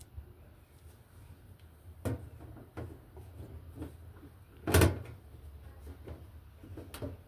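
A few knocks and clicks, with one louder clatter a little after halfway.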